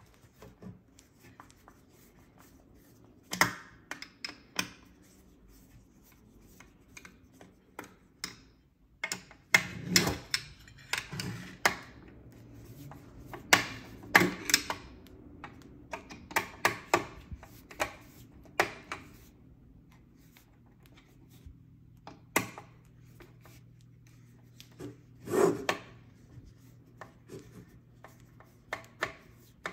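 Irregular clicks, taps and scrapes of a hand screwdriver working on the metal frame and heatsinks inside a Wi-Fi router being taken apart, with parts knocked and shifted between the clusters of clicks.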